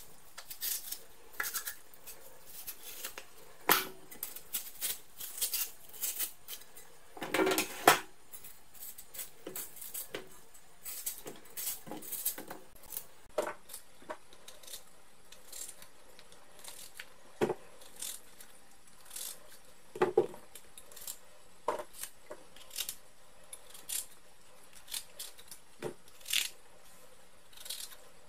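Kitchen knife cutting watermelon rind and zucchini, with irregular sharp clicks and knocks as the knife and the pieces touch a plastic tub and a stainless steel sink. The loudest cluster of knocks comes about eight seconds in.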